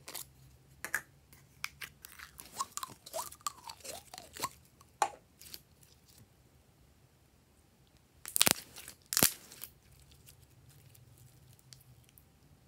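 Glossy slime squelching and crackling as it is squeezed out of a small plastic tub and stretched by hand, with many short sticky clicks and pops. There are two louder crackling bursts about eight and nine seconds in.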